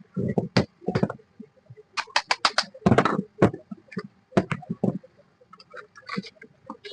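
Irregular clicks, knocks and short scrapes of metal parts and tools being handled as the end cover of an electric fan motor is fitted and screwed back on.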